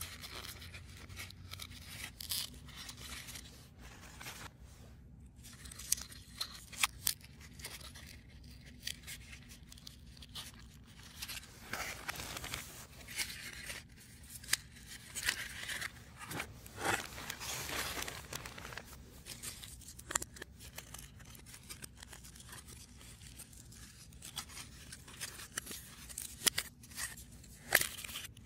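Hands assembling a 3D puzzle: a scattered run of small clicks, taps and scrapes as pieces are handled and pressed together. Partway through come longer stretches of rustling, tearing-like noise, as when pieces are pushed out of their sheets.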